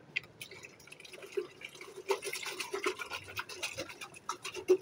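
Water sloshing and splashing inside a glass jar as it is swirled and shaken to rinse it, in quick irregular splashes that grow busier about halfway through.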